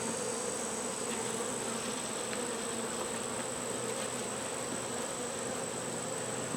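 Honey bees buzzing in a steady hum around an opened hive.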